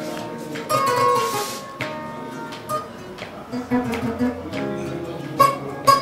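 Plucked string instrument music: a run of picked notes, each ringing and dying away, with a brief hiss about a second and a half in and a few sharper plucks near the end.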